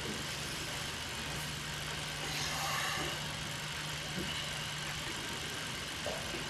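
A steady low hum under a constant hiss, with a faint brief swell about two and a half seconds in.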